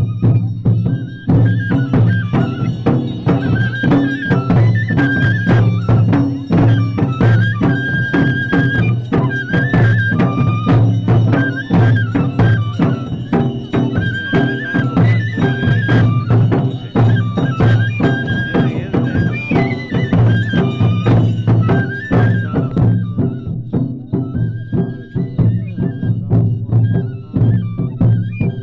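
Music with a steady, fast drum beat under a high, ornamented melody line, in a traditional folk style.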